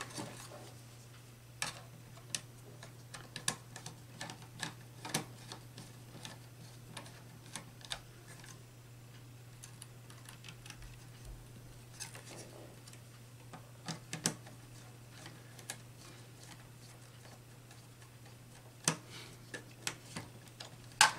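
Small irregular clicks and taps of a wire being fitted and a screwdriver working the screw terminals of a DIN-rail power supply, over a faint steady low hum.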